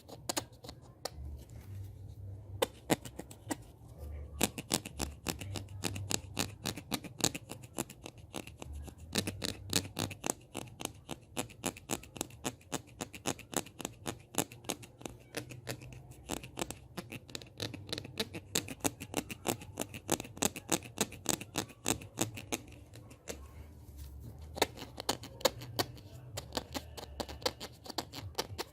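Close-miked ASMR hand sounds: quick, irregular clicks and taps, several a second, with some scratching, over a low rumble.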